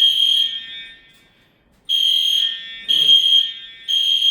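Edwards Genesis ceiling-mount fire alarm horn sounding the temporal-3 evacuation pattern: three short, loud, high-pitched blasts about a second apart, a pause of about a second and a half, then three more.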